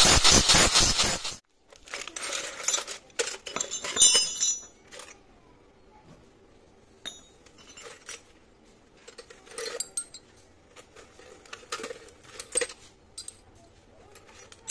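A grinding wheel grinds against a steel spiral tap for about a second and a half, then cuts off. After that, steel twist drill bits clink against each other and against a metal tin in short scattered clatters as they are picked through by hand.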